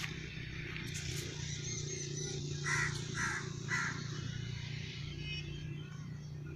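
A crow cawing three times in quick succession, over a steady low hum.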